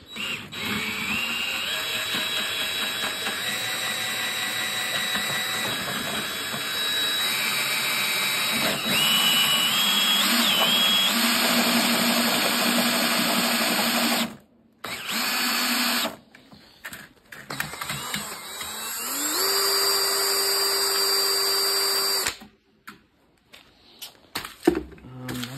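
DeWalt drill mixing mortar, its motor running in a long stretch with its pitch stepping up and down. It stops about 14 seconds in, gives a short burst, then spins up again and cuts off suddenly about 22 seconds in.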